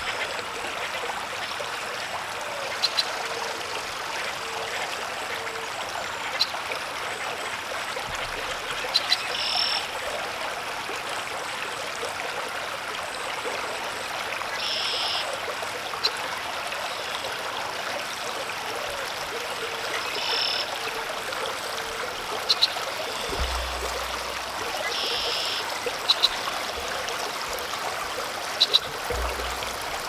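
Outdoor pond ambience: a steady hiss with a short high-pitched call about every five or six seconds, and a few faint clicks.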